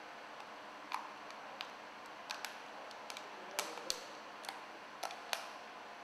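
Scattered light clicks and taps of hard clear plastic, about nine in all and irregularly spaced, as the halves of a cable-splice resin mould are handled and pressed into place around a wire joint.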